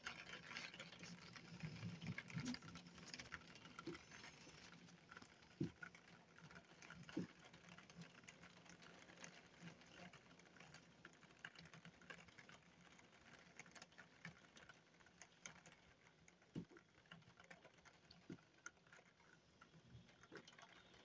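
Near silence with faint, scattered ticks of rain pattering on a window, a little busier in the first few seconds.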